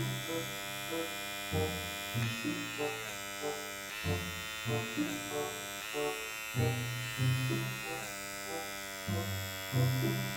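Small battery-powered blackhead pore vacuum running, a steady electric buzz held against the skin; it pulls out almost nothing.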